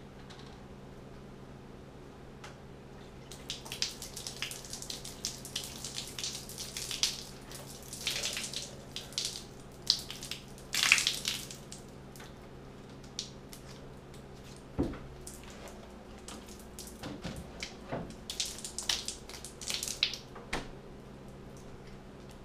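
Milk pouring from a plastic gallon jug and splattering onto a tile floor in two long spells of irregular splashing, the first starting a few seconds in and the second near the end. A few sharp knocks fall in the gap between them.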